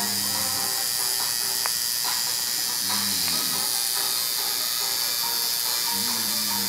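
Electric tattoo machine running steadily with a high, even buzz as its needle works ink into the skin.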